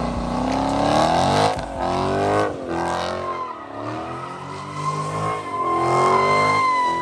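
Dodge Challenger spinning donuts: the engine revs up and falls back in repeated swells while the rear tyres spin and squeal. The tyre squeal becomes a steady high tone from about halfway through.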